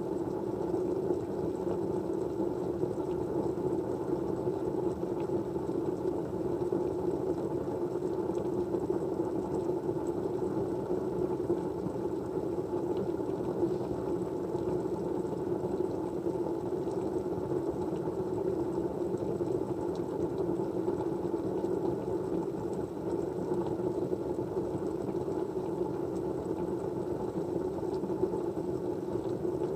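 Steady white-noise background: an even, low hum-like noise that runs without breaks or changes, with a faint thin high tone above it.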